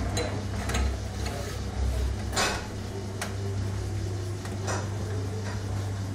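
Rim-straightening machine running with a steady low hum as it turns a bent steel car wheel against its pressing roller. Scattered metallic clicks and knocks come through, the loudest about two and a half seconds in.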